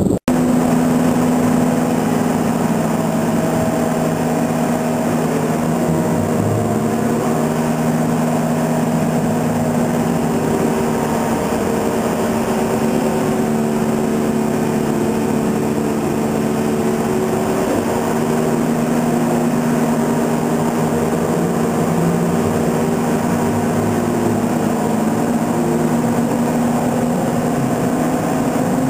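Motor-generator (MG) set of a Škoda 14Tr trolleybus humming steadily under the floor. It is the rotary converter that supplies the vehicle's low-voltage power. Its several steady tones hold a constant pitch.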